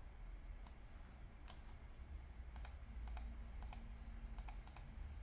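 Faint computer mouse clicks, about a dozen, several in quick press-and-release pairs, over a low steady room hum.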